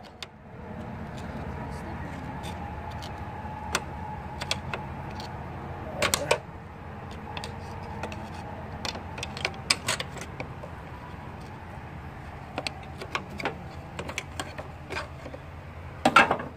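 Scattered metallic clicks and knocks of a pry bar working the shifter cable ends off a Dodge Neon's manual transaxle, with a louder cluster about six seconds in and the loudest near the end, over a steady low hum.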